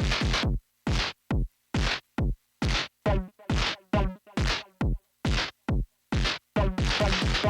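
Arturia MS-20 V software synthesizer playing a rhythmic pattern of short, drum-machine-like percussive hits. Each hit is noisy, sweeps downward in pitch and is cut off sharply; a few carry a ringing pitched tone. The pattern stops suddenly at the end.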